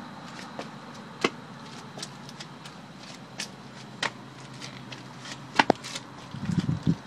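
Handheld camera handling and movement noise: scattered sharp clicks and knocks over a faint steady hum, the loudest a quick pair about five and a half seconds in, with a few soft low thumps near the end.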